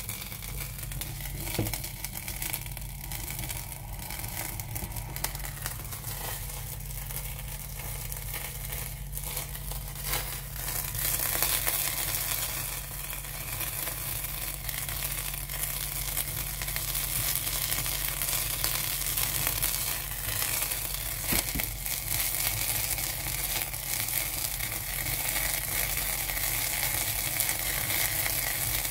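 Brandy flambéing in a saucepan over butter and onion: a steady crackling sizzle that gets louder about ten seconds in.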